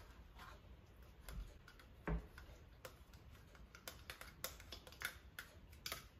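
A utensil clicking and tapping against a bowl while mashing thawed boysenberries: irregular light clicks, with one duller knock about two seconds in.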